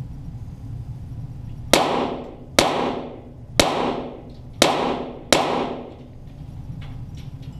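Five .22 Walther GSP target pistol shots, about a second apart, heard from near the target, each ringing out in the range's echo.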